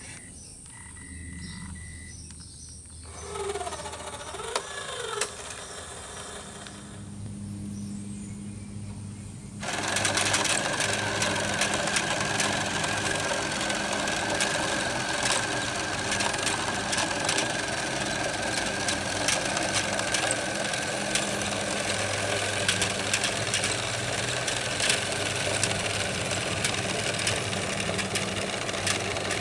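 LEGO Power Functions electric motors driving plastic gears and chain on a LEGO Technic combine harvester: a low hum with a few short rising and falling whines at first, then, about a third of the way in, a louder steady whirring with a high whine and rapid plastic clicking.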